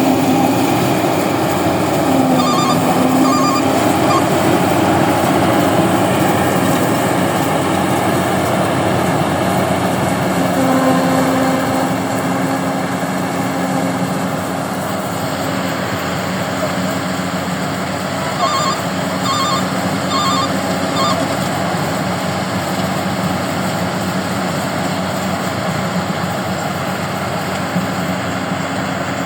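Rice combine harvester running steadily, with a continuous engine and machinery drone. Twice, short runs of high beeps sound over it.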